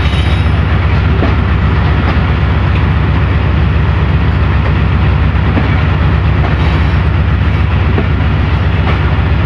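Pakistan Railways passenger coaches rolling slowly along a station platform: a steady, loud low rumble of wheels on the track, with a few faint clicks.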